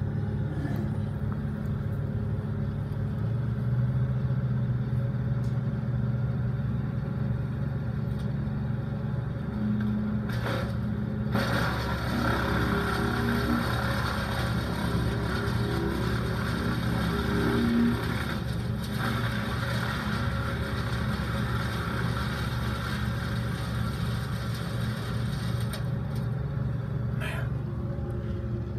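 Brush chipper's engine running steadily. From about twelve seconds in, branches are fed in and chipped for several seconds, adding a harsher grinding noise and an engine note that wavers and rises under load before dropping back to the steady run.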